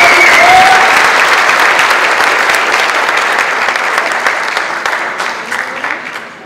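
Audience applause, loud at first and dying away steadily, thinning to a few scattered claps near the end.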